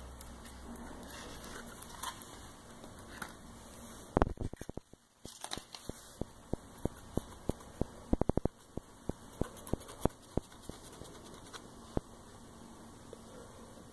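Fingers pressing and peeling a small vinyl decal's transfer tape on a stand mixer's head, making crackling and a string of sharp clicks, with two quick runs of clicks about four and eight seconds in.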